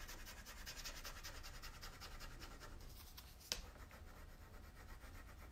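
Wooden rubbing stick scrubbed quickly back and forth over a rub-on furniture transfer's clear backing sheet, a soft rhythmic scratching that grows fainter after the first couple of seconds. One sharp click about three and a half seconds in.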